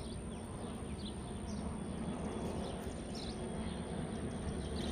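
Steady outdoor background noise with a few faint bird chirps.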